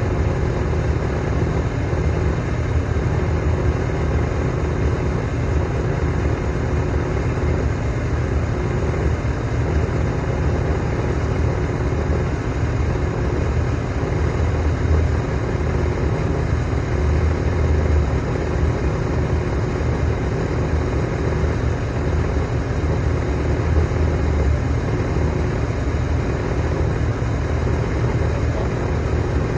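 Heavy construction machine's diesel engine running steadily, the sound mostly low-pitched and even, with no sharp knocks or clanks.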